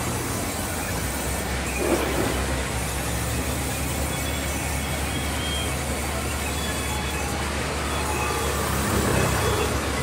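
Sawmill band saw running with a steady low drone and a constant noisy hiss as wood is fed through it. A short, louder swell comes about two seconds in and again near the end.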